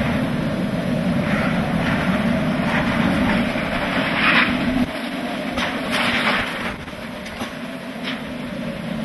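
Hurricane-force wind and rain buffeting a vehicle, heard from inside: a steady low rumble with short gusts of rain hissing against the glass. The rumble drops away about five seconds in.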